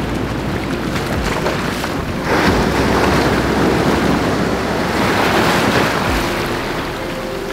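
Ocean surf washing up the beach: a wave surges in and foams from about two seconds in for several seconds, then eases. Wind rumbles on the microphone throughout.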